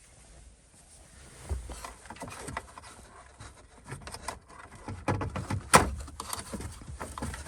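Handling noise: scattered clicks, knocks and rubbing from hands working with things at close range, with one sharp knock near the end.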